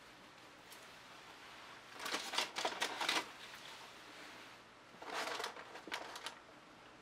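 Gloved hands handling a wet, paint-covered canvas: two bursts of crackly rustling and clicking, one about two seconds in and another about five seconds in.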